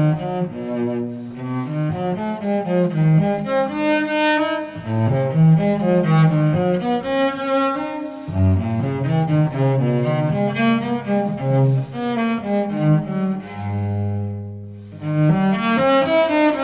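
Gentle instrumental classical music with a moving melody over low notes. Near the end a low note is held and dies away, then the music starts up again.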